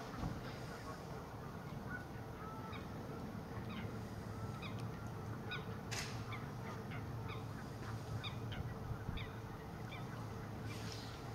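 Faint bird calls, a scatter of short repeated notes of the kind given by waterfowl, over a steady low background of outdoor noise, with a single sharp click about six seconds in.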